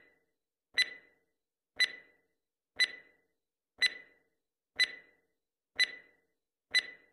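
Countdown timer sound effect ticking once a second, seven short ticks, counting down the seconds left to answer.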